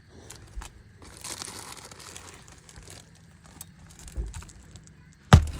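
Asphalt shingles being handled and lifted, a faint crinkling and scraping with small ticks, then one loud knock near the end.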